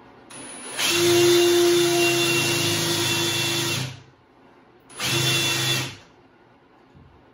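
Cordless drill running against the wooden door jamb, boring countersink holes for screws: one long run of about three and a half seconds, then a short run of about a second, each with a steady motor whine.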